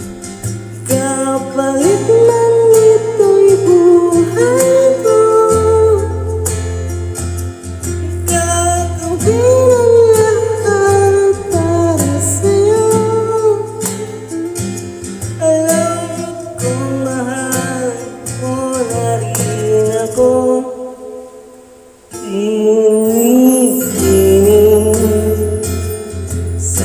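A song: a singing voice carrying a melody over guitar and a steady bass line, breaking off briefly about three-quarters of the way through.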